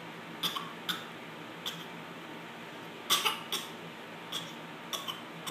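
A small spoon clicking and scraping against a plastic bowl: about nine short, irregular clicks, with a quick run of three a little past three seconds in.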